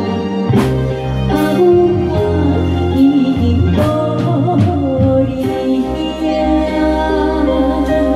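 A woman singing a slow, lyrical Hokkien ballad into a microphone over a live band led by electronic keyboard, with a steady bass line underneath.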